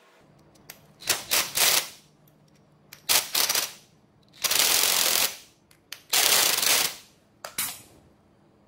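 Cordless impact driver hammering in five short bursts of rapid rattling, driving bolts tight into a stack of steel motorcycle sprockets; the middle two bursts run longest.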